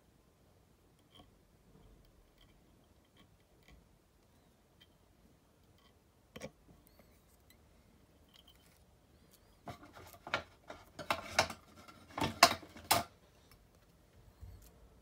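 Small clicks and handling noises from fly tying at a vise: one sharp click about six seconds in, then a cluster of quick clicks and rustles from about ten to thirteen seconds.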